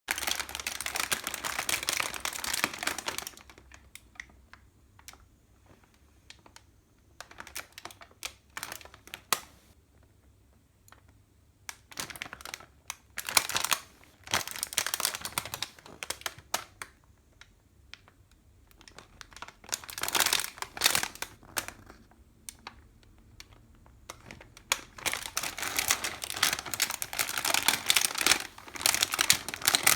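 Plastic snack bag of rice crackers crinkling and rustling as it is handled, in several bouts of a few seconds with quieter gaps between them.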